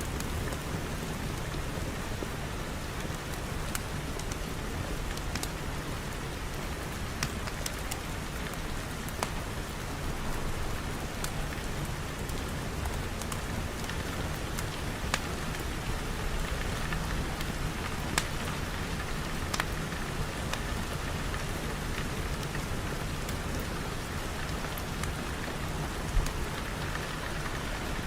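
Steady rain falling on a surface, a constant even hiss with scattered sharp ticks of individual drops.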